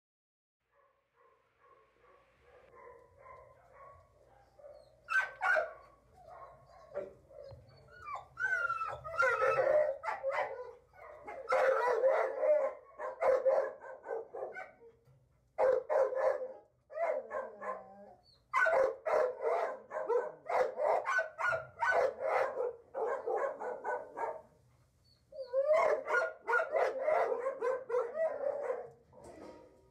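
Dog barking in repeated runs of quick barks, starting about five seconds in, with short pauses between runs.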